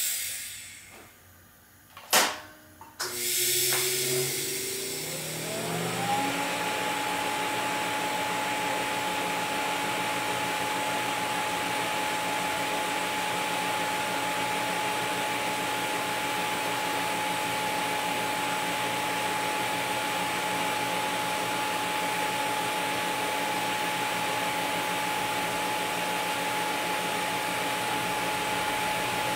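TIG welding arc from a Miller Dynasty 350 on thin-wall stainless sanitary tubing. The arc strikes with two sharp cracks about two and three seconds in, rises in pitch over the next few seconds as the current comes up, then burns as a steady hiss with a steady whine for the rest.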